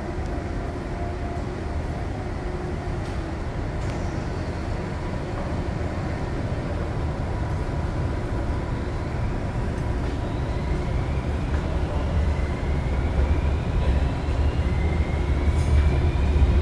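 Electric train moving on the track behind the platform screen doors of an underground station: a low rumble that grows steadily louder, with a whine rising in pitch from about ten seconds in.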